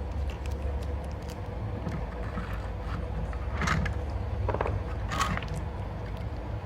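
Small clicks and scrapes from laptop parts and a DC power jack being handled, with two louder scrapes near the middle, over a steady low hum.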